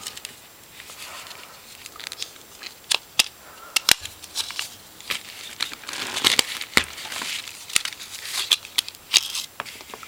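Plastic pry tool working around the seams of an HTC 8525 phone's housing: scratchy scraping and creaking of the casing, broken by a string of sharp clicks and snaps as the parts are levered apart.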